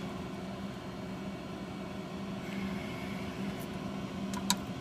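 Steady low fan hum, with one sharp click near the end.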